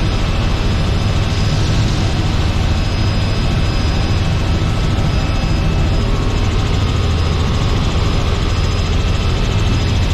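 Robinson R44 helicopter running steadily, a continuous low engine and rotor drone.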